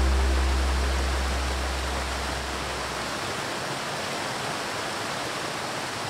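Steady rushing of a waterfall. A low held note from background music fades out over the first three seconds.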